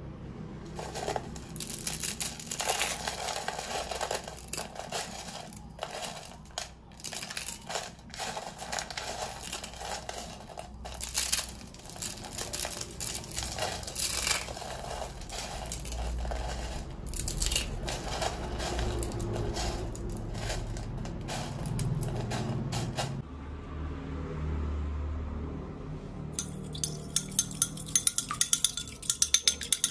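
Dry instant ramen noodle blocks being crushed and crumbled by hand on a plate, an uneven crackling crunch. Near the end, a fork beating eggs in a bowl, a fast, even run of clicks.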